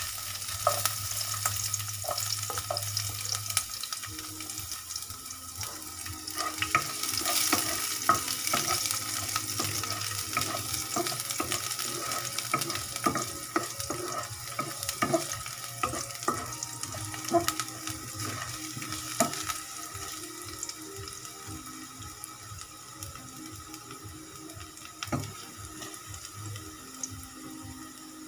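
Chopped garlic sizzling in oil in a nonstick wok, with a wooden spatula stirring and tapping against the pan in many short clicks. The sizzle eases somewhat toward the end.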